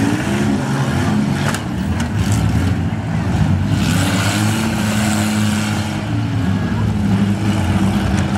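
Several demolition derby minivans' engines revving hard and falling back, with sharp crashes of metal hitting metal about one and a half and two seconds in.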